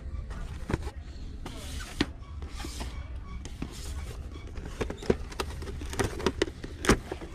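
Boxed action-figure packaging of card and plastic blister being handled and turned over: scattered taps, clicks and rustles, the sharpest about two seconds in and near the end, over a steady low hum.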